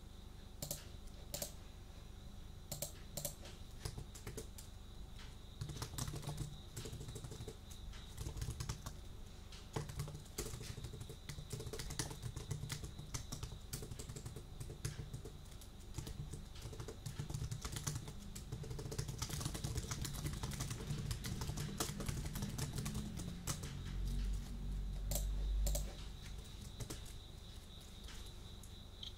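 Computer keyboard being typed on, with irregular key clicks throughout. A louder low rumble comes in briefly near the end.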